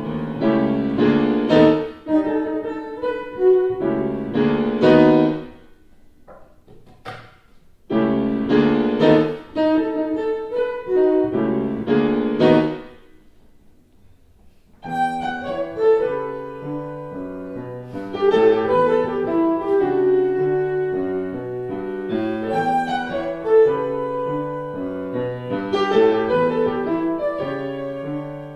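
Electric violin and grand piano playing an instrumental duet. Two loud, chordal phrases each break off into a brief lull, and then both instruments play on steadily.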